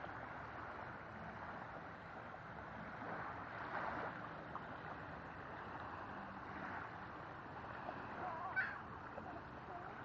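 Gulls calling: a few short cries, the loudest and sharpest near the end, over a steady wash of small waves and wind on the shore.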